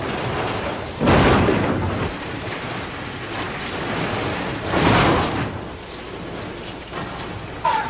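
Film sound effects of a railway carriage crashing off a viaduct: continuous rumbling crashing noise with two heavy crashes, about a second in and about five seconds in, and a brief shrill tone near the end.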